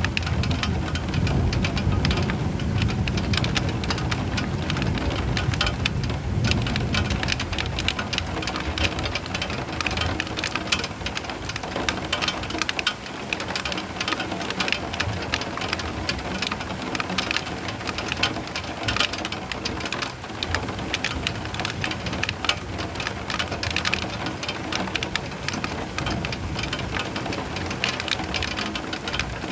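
Steady rain with a dense patter of drops. A low rumble of thunder fills the first several seconds and then fades away.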